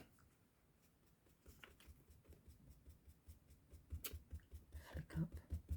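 Faint quick soft taps, about five a second, starting a second and a half in and growing stronger, with a couple of sharper clicks: Dark Denim ink being dabbed onto cardstock.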